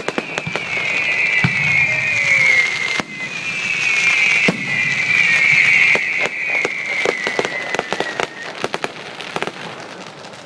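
Fireworks display: two long whistling shells, each whistle falling slightly in pitch, over many sharp cracks and pops that thin out towards the end.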